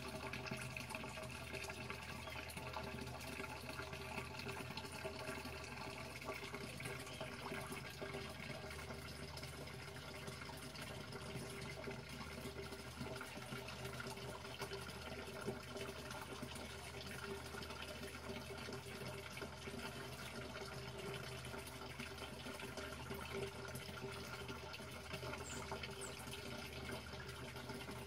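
Steady running water in a small garden pond, an unbroken trickling splash with a low steady hum underneath.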